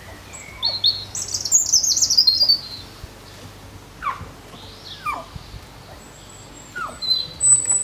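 Songbirds chirping and trilling in the background, with a few short, falling calls about four, five and seven seconds in.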